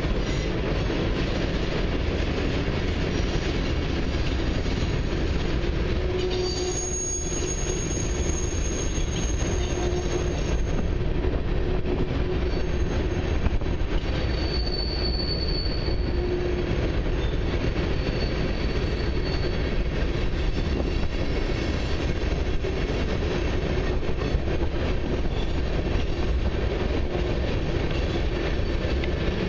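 Freight train cars (centerbeam flatcars, covered hoppers, a tank car) rolling steadily past close by, a continuous rumble and clatter of steel wheels on rail. High-pitched wheel squeal rises above it for a few seconds about seven seconds in, and briefly again around fifteen seconds in.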